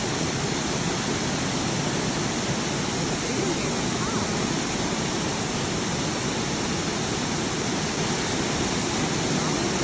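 Waterfall rushing, a steady, unbroken roar of falling water.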